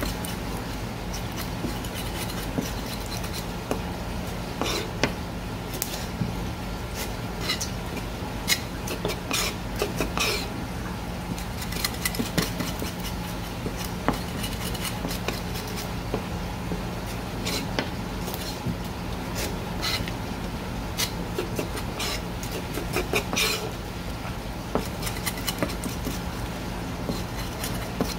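Irregular clicks, taps and scrapes of a knife working small gizzard shad on a cutting board, over a steady low hum.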